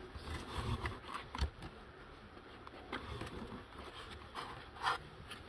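Hands handling parts in a cardboard box lined with foam: scattered light rustles, clicks and knocks, with one louder sound near the end.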